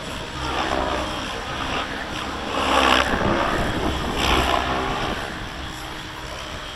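Gaui X7 electric RC helicopter in flight: a steady whine from its motor and rotor, swelling louder twice in the middle, with wind buffeting the microphone.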